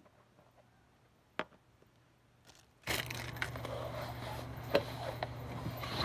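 A plastic slime jar's lid clicks shut about a second and a half in. About three seconds in a steady low hum with rustling and scattered clicks sets in suddenly as the person gets up and moves close past the camera.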